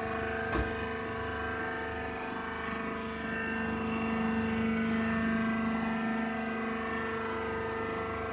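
Wood shavings baler running: a steady machine hum with several fixed tones, a single click about half a second in, and a slight swell in level around the middle.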